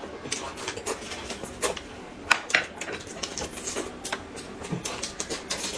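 People eating: irregular smacks and clicks of chewing and biting, with light taps of chopsticks on plates.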